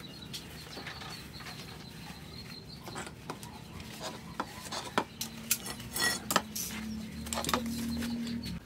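Hands handling fiberglass exhaust packing and tools on a concrete floor: light rustling with scattered sharp clicks and clinks, busiest in the second half. A faint steady low hum comes in over the last three seconds.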